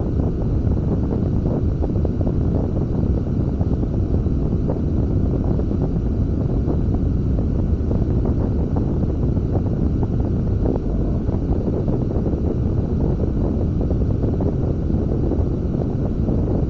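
Wind buffeting the camera's microphone while a beach catamaran sails, a steady, dense low rumble with no breaks.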